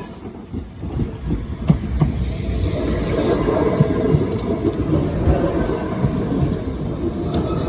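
Tram running past close by: a steady rumble of wheels on rail that builds over the first couple of seconds, with a few clicks from the wheels.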